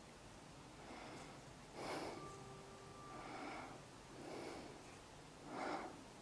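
Soft breathing close to the microphone, with a faint breath about every second.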